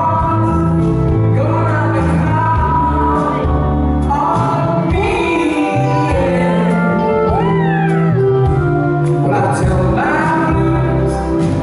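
Male lead singer singing live over a backing band with electric guitar and keyboards. His voice slides through a held, bending phrase a little past the middle.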